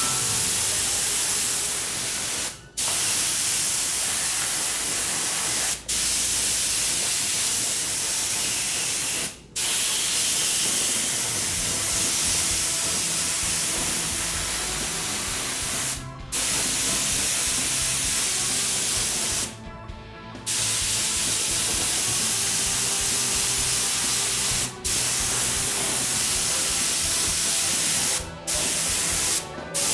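Gravity-feed spray gun spraying lacquer paint: a steady hiss that cuts out briefly about eight times as the trigger is released, once for about a second.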